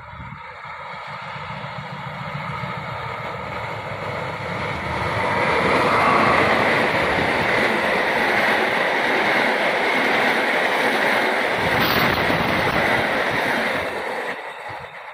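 A passenger train hauled by a diesel locomotive approaches and passes close at speed. The locomotive's rumble grows, then comes a loud, steady rush of the coaches' wheels on the rails, with one sharp click near the end before the sound starts to fade.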